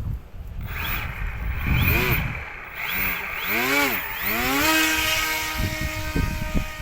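Motor of an RC model MiG-29 jet whining in flight, its pitch sweeping up and down several times before holding steady, with strong wind rumbling on the microphone.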